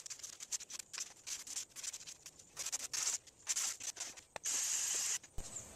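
Sanding the epoxy filler where the foam meets the cedar on a bench seat: irregular scratchy strokes of abrasive rubbing over the surface, with a longer stretch of sanding about four and a half seconds in.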